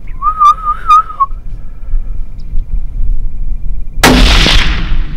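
A short wavering whistle lasting about a second, then about four seconds in a single loud rifle shot that rings off, the shot that drops a coyote at about 112 yards.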